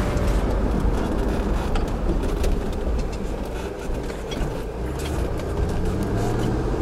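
Steady engine and road noise heard from inside a car driving at low speed, with a few light ticks.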